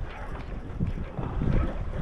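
Wind buffeting the microphone in an uneven low rumble that rises and falls, over a choppy sea.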